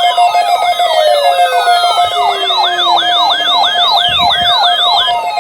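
Overlapping electronic alert tones and siren sweeps: a steady tone under a siren-like whoop repeating about two and a half times a second, with several long falling glides. The whooping stops near the end.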